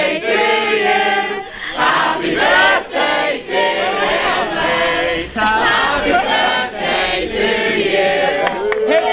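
A group of people singing together, many voices at once.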